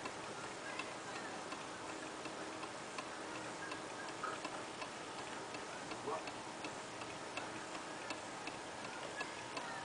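Steady, evenly spaced ticking, like a clock, over a quiet background hiss.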